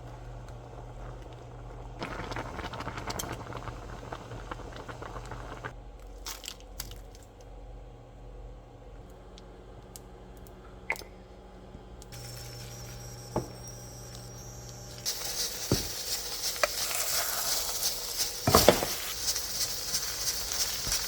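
Home-kitchen cooking sounds in several short cuts: quiet clinks and knocks of dishes and utensils, then a louder steady hiss over the last six seconds with a few sharp knocks.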